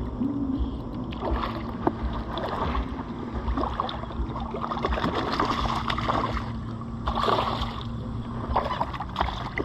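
Irregular water splashes and gurgling over a steady low rumble, while a hooked smallmouth bass is fought on the line.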